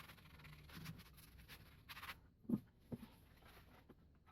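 Quiet handling noise with two short, light knocks about two and a half and three seconds in, as small parts are picked up and set down.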